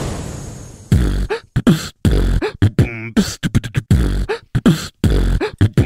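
Beatboxed hip-hop beat: mouth-made kick drums about once a second with sharp snare and hi-hat clicks between them, and a wobbling vocal effect near the middle, after a fading noise wash over the first second.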